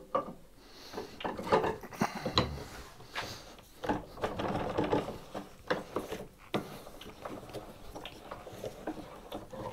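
Workbench being handled as a workpiece is clamped: bench dogs knocking and scraping in their holes and the front vise being worked, giving a run of irregular clicks, knocks and scrapes.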